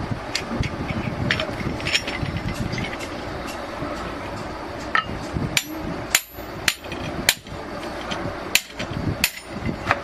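Hammer blows on metal: irregular sharp strikes, light and scattered at first, then about six heavier blows in the second half, over steady workshop noise.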